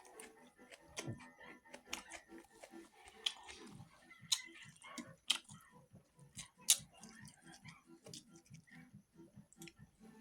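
Close-up mouth sounds of someone eating rice and buffalo meat: chewing in a steady rhythm of about three to four chews a second, with wet smacking clicks. A few sharper clicks stand out about four, five and seven seconds in.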